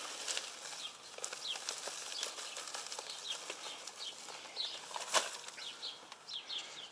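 Small birds chirping again and again, over a soft hiss of dry concrete mix being poured from a bag into a fence-post hole. A single sharp knock comes about five seconds in.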